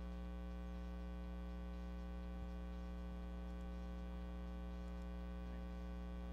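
Steady electrical mains hum on the audio line: a low, unchanging hum with a ladder of fainter buzzing overtones above it.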